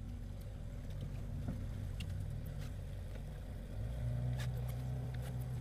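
Small boat's outboard motor running at low speed, its steady hum getting louder and a little higher a little over halfway through as it is throttled up. Scattered light clicks come over it.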